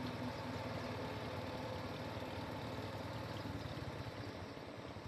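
A vehicle's engine idling steadily, a low even hum.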